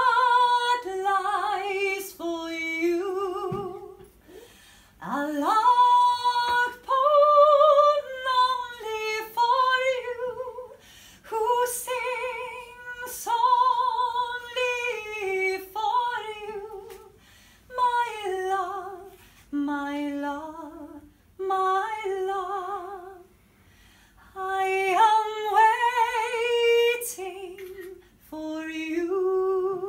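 A woman singing solo and unaccompanied, in phrases with vibrato on the held notes and short breaks for breath between them.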